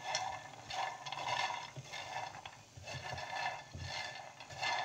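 Silicone spatula stirring puffed lotus seeds (makhana) in a nonstick pan, the light puffs rattling and scraping across the pan in repeated strokes, a little more than one a second. They are being roasted dry, the ghee all soaked up, until golden and crisp.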